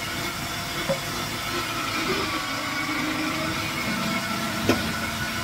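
Electric food-processor-style squash grater running steadily as pieces are pushed down its feed chute, with a sharp knock about four and a half seconds in.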